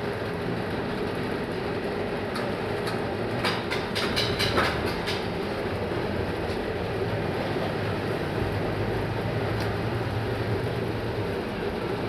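Soft-serve ice cream machine running with a steady low motor hum while soft-serve is drawn from a spout into a cup. A cluster of sharp clicks and taps comes a few seconds in.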